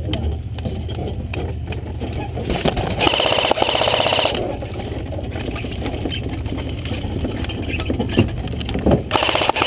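An airsoft electric RPK support gun firing two long full-auto bursts, a fast even rattle with a motor whine, about three seconds in and again near the end. A truck engine rumbles steadily underneath.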